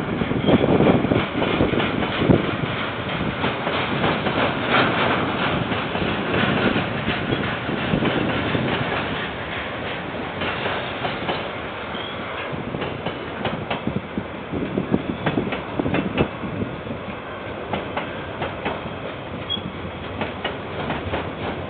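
Freight train wagons rolling past, the wheels clacking irregularly over the rail joints under a steady rumble, a little louder at first and easing slightly through the pass. Heard through a security camera's microphone, with little top end.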